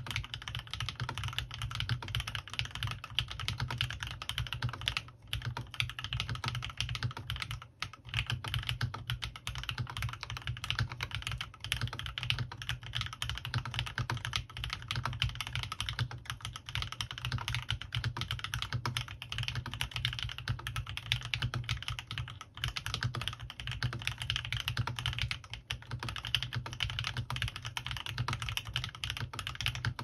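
Continuous fast typing on a CannonKeys Rekt1800 full-size mechanical keyboard fitted with lubed Gateron Ink Black V2 linear switches and PBT keycaps, a dense run of keystrokes with a few short breaks.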